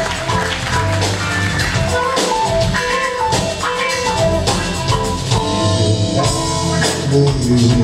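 Live rock band playing: drum kit and electric guitars over a bass line, with a lead melody of held notes on top and no singing.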